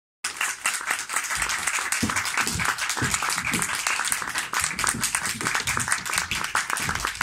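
Audience applauding: a dense, irregular patter of many hands clapping, with a few voices underneath.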